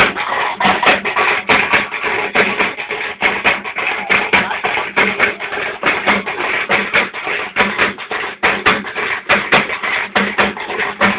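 Loud drum-led festival music: rapid, uneven drum strikes, several a second, over a steady low tone.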